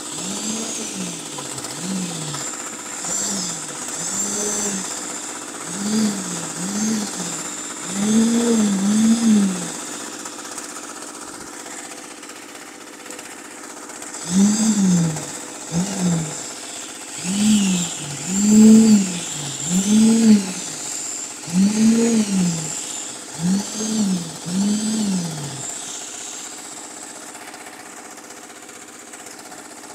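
Concrete poker vibrator running while it is worked through wet concrete in wall formwork. Its motor pitch rises and falls in repeated short swells, about one a second, and goes quieter for a few seconds in the middle and again near the end.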